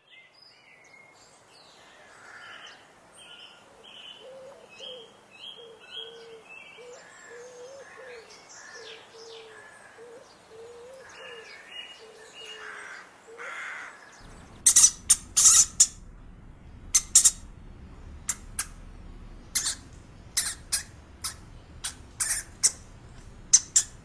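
Birds calling: a run of short, low notes repeated about twice a second under higher chirps. About fourteen seconds in, this cuts abruptly to a different sound of sharp, high squeaks or clicks at irregular intervals.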